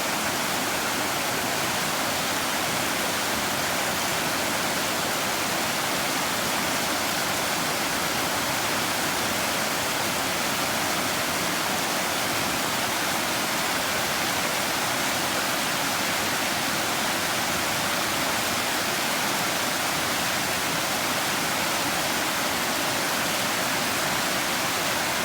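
Floodwater rushing in a storm-swollen creek that has risen to river level: a steady, even roar of moving water that does not change.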